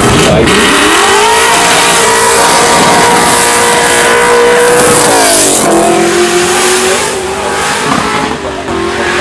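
A rally car's engine is run hard. The revs climb in the first second or so and hold high, drop sharply about five seconds in, then run steady at lower revs.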